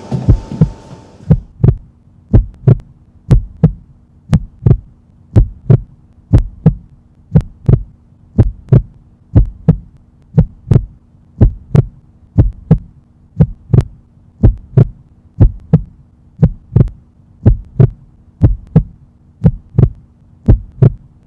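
Heartbeat sound effect: loud paired low thumps about once a second over a steady low drone.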